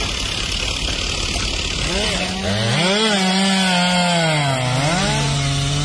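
Chainsaw engine running as firefighters cut up a fallen tree, its pitch rising and dipping as it is revved into the wood. It comes in about two seconds in, after a steady rushing noise.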